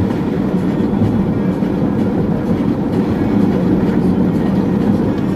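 Steady road and engine noise inside a moving car's cabin: a constant low drone with tyre rumble.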